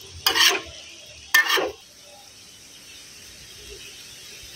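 A spatula scrapes through a pan of frying mutton boti twice, two short scrapes about a second apart, over a steady low sizzle.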